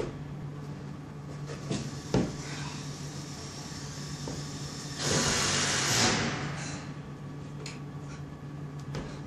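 Steady low hum of an indoor climbing hall, with a couple of sharp knocks about two seconds in as a climber's hands and shoes meet plastic holds. About five seconds in comes a loud rushing hiss lasting over a second.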